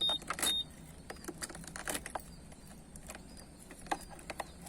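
Two short high beeps right at the start, then scattered light clicks and taps of keys and a motorcycle's ignition lock being handled. The ignition was damaged in an attempted theft and will not start the bike.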